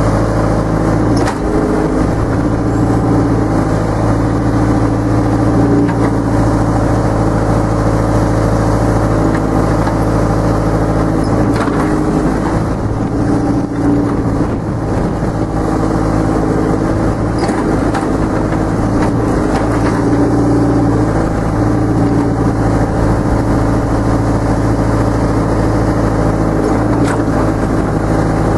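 1974 Hymac 570 excavator's diesel engine running steadily under digging load, heard from the cab, with a few faint knocks from the digging gear.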